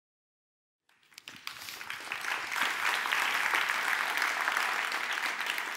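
Audience applauding, starting about a second in, swelling to a steady clatter of many hands and dying away near the end.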